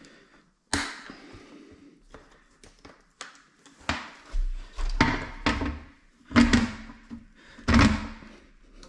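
A series of hard knocks and thunks from parts and tools being handled during a toilet installation. There is one sharp knock near the start, scattered light clicks, then several heavier thuds in the second half.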